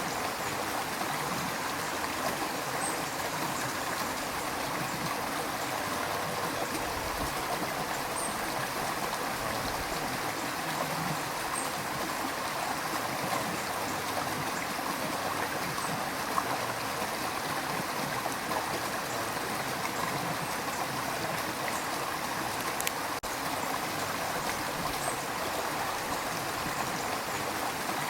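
River water rushing and gurgling over rocks, a steady continuous flow with faint small splashes.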